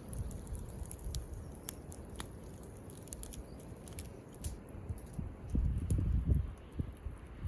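Campfire crackling, with scattered sharp pops and snaps. A low rumble of wind on the microphone swells up around six seconds in.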